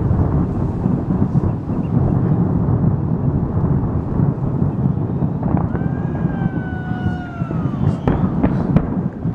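Fireworks finale: a dense, rapid barrage of explosions that merges into a continuous rumble, with sharp bangs throughout. From about halfway, long falling whistles sound over it, and there are a few sharp cracks near the end.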